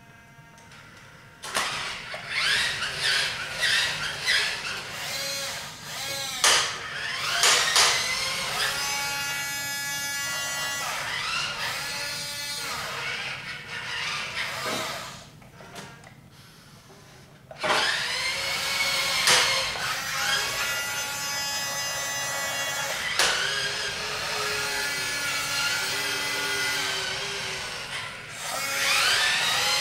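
Small electric motors of a Hobby Engine 1/14-scale RC wheel loader whining through their plastic gearboxes, rising and falling in pitch as it is driven and worked. There is a pause of about three seconds midway.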